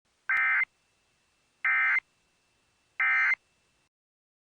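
Emergency Alert System end-of-message (EOM) data bursts: three short, harsh digital SAME bursts about a second apart. They mark the end of the alert message.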